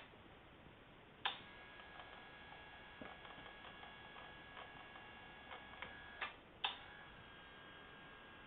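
Electric adjustable bed base clicking and ticking: a sharp click about a second in, then a faint steady high whine with small ticks, and two louder clicks near the end as its parts rub past each other noisily, a fault that repair visits have not cured.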